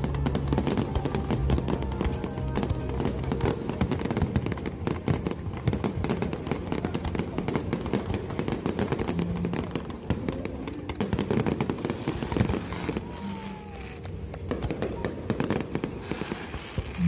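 Fireworks display: dense crackling and popping of aerial shells bursting, with music playing underneath.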